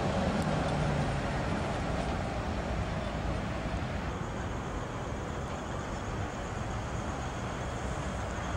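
City street noise of road traffic and trams, with a low hum from a passing tram in the first seconds. The background changes abruptly about four seconds in.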